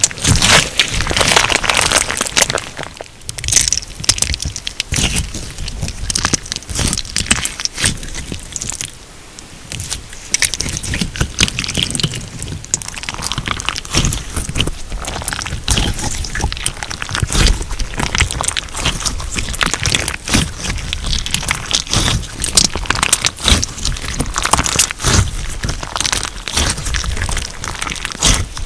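Crunch slime being squeezed, pressed and stretched by hand, giving a dense run of small crackles and pops from the crunchy bits mixed into it.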